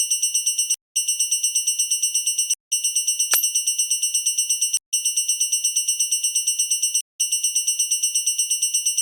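Electronic railroad crossing warning bell sound effect: a high ringing tone pulsing about seven or eight times a second, broken by a few short gaps. About three seconds in, a quick falling swoop sweeps down through it.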